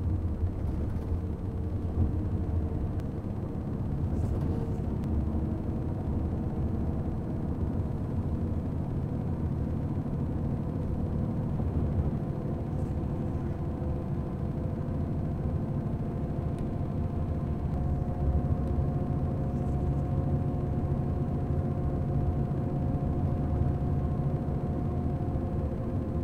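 Steady road and engine noise heard from inside a vehicle cruising at speed on an expressway: a low, even rumble of tyres and drivetrain with a faint hum whose pitch shifts slightly.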